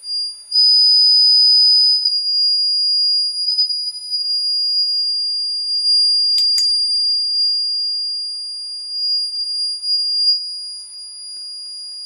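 A light-activated car reversing beeper, set off by a torch shone on its light sensor, sounds a steady, piercing high-pitched tone whose loudness wavers as it is handled. A single sharp click comes about six and a half seconds in.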